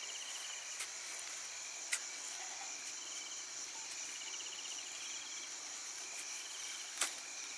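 Night insect chorus of crickets chirring: a steady high hum, with a pulsed trill that comes and goes. A few short clicks sound over it, the loudest near the end.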